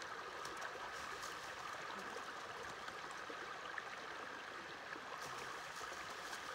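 Steady rush of a flowing creek, with a few faint crunches and rustles of snow as a freshly trapped mink is rubbed dry in it.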